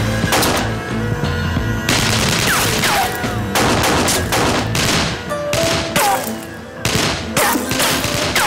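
Gunfight: pistol shots fired in quick, irregular volleys, several followed by a short falling whine, over tense background music.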